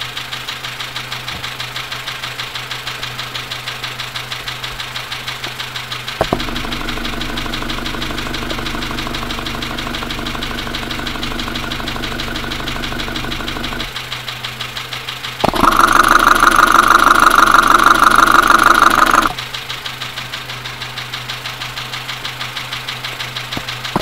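Renault D4F 1.2 petrol engine idling with a rapid, regular knocking, heard through an electronic mechanic's stethoscope probe. The owner first suspected low oil and possibly a spun bearing. There are clicks about six seconds in and again about fifteen seconds in, where the knocking suddenly gets much louder for a few seconds before dropping back.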